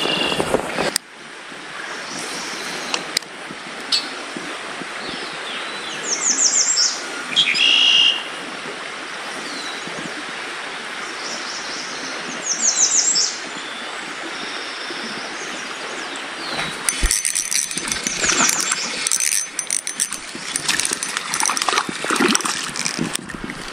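Steady rush of creek water, with a songbird singing several short, rapid trilled phrases. From about two-thirds of the way in, rustling and brushing through tall grass.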